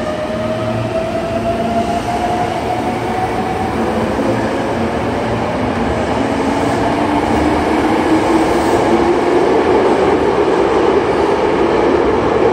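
Hankyu 8300 series train pulling out and accelerating, its Toyo GTO-VVVF inverter whining in tones that climb steadily in pitch. Wheel and running noise grows louder as it speeds up.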